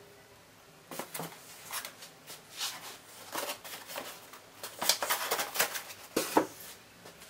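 Packing materials being handled: a power cord set into a polystyrene foam packing box and a small cardboard box picked up and moved, giving a run of irregular rustles, scrapes and knocks starting about a second in, loudest near the end.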